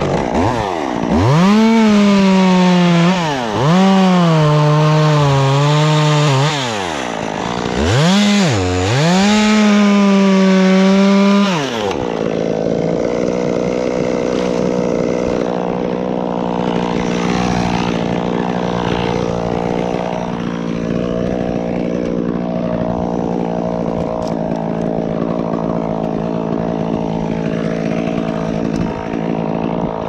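Stihl chainsaw revved hard and cutting, its pitch sagging under load and dropping back between several cuts for about eleven seconds. After that a steady, somewhat quieter engine note runs on at an even pitch.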